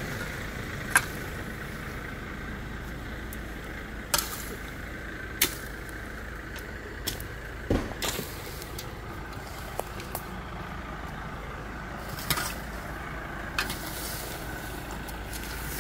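A truck engine running steadily, with irregular sharp knocks and scrapes of a hoe chopping into weedy soil, several strikes a second or more apart, the loudest about a second in.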